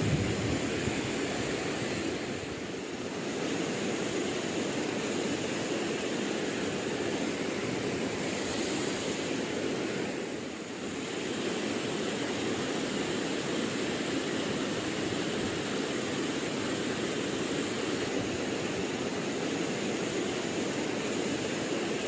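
Steady rushing of flowing river water, with a faint high steady tone over it; the rush eases briefly twice.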